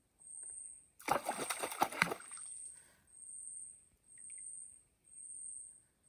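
Water splashing and sloshing for about a second, a quick run of slaps and splashes about a second in. Throughout, an insect chirps high and steadily about once a second.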